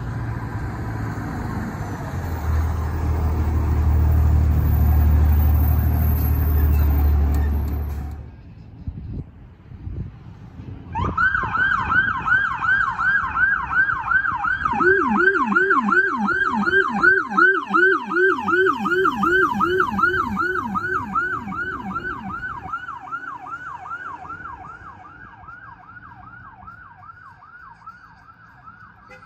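A fire engine's engine runs heavily as it pulls out. After a break, an emergency pickup truck's siren yelps fast and steadily, with a second, lower yelping tone alongside it for several seconds in the middle. The siren fades as the truck drives away.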